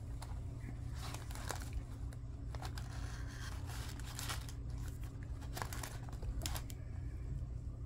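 Paper and plastic packaging rustling and crinkling in short, irregular bursts as gift tags and wrapped items are handled, over a steady low hum.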